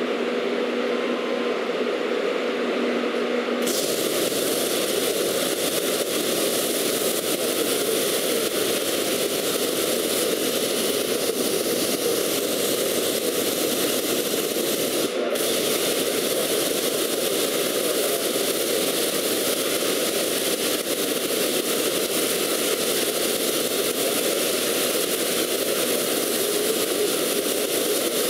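Steady hissing roar of a portable CNC plasma cutting machine's torch, cutting steel plate. It starts abruptly about three and a half seconds in over a low, steady hum and breaks off for an instant about fifteen seconds in.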